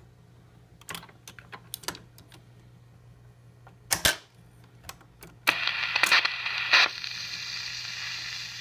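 Automatic 45 rpm record changer of a 1950 Ristaucrat Dial-O-Matic cycling after its reject button is pressed: a run of mechanical clicks, a louder clunk about four seconds in, then a steady surface hiss from about five and a half seconds in with a couple more clunks, as the stylus sets down before the music. A low steady hum runs underneath.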